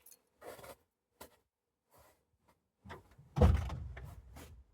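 Car door of a 2000 Chevy Tracker shutting with a single loud thump about three and a half seconds in, after a few faint knocks.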